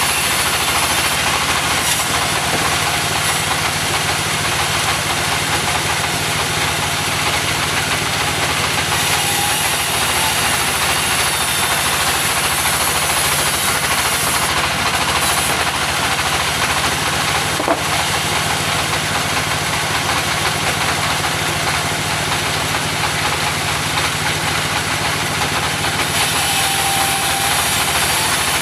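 Engine of a portable sawmill running steadily, a constant machine drone with an even high noise over it and no break.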